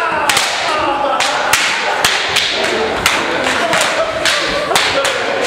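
Martial-arts belts lashed against a bare back and body in a quick, irregular run of sharp cracks, about a dozen, over a group shouting and cheering.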